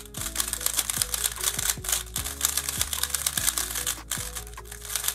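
Brand-new Peak Cube S3R 3x3 speed cube being turned quickly by hand: a dense run of rapid plastic clicks and clacks as the layers snap round. Background music plays underneath.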